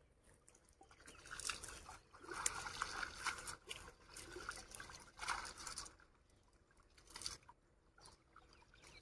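Shallow water splashing and dribbling in irregular bursts as hands work through it to catch fish, quieter near the end.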